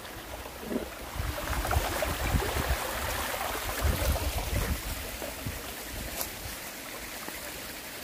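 Shallow mountain stream running and trickling over rocks, a steady rush of water. Between about one and six seconds in, a low uneven rumble of buffeting on the microphone rises over it, then eases off.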